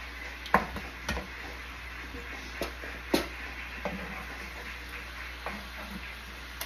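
A cooking utensil knocking and scraping against a stainless frying pan several times, at irregular intervals, as seared lamb chops are shifted around in their pan juices, over a faint steady low hum.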